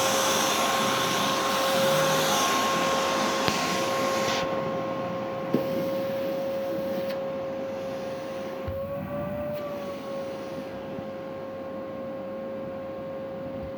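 Vacuum cleaner running with a steady whine over a rushing hiss; the whine rises briefly in pitch about nine seconds in and settles back, and the sound gradually grows quieter.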